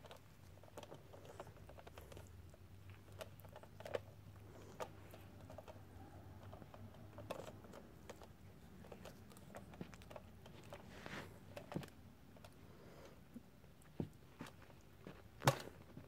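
Kitten playing with a wand toy on carpet: scattered light clicks, taps and rustles as it paws at and bites the toy, with one sharper click near the end.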